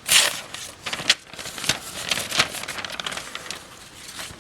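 Paper rustling and crackling in a run of irregular strokes as a freshly sharpened folding knife slices through it to test the edge; the loudest stroke comes right at the start.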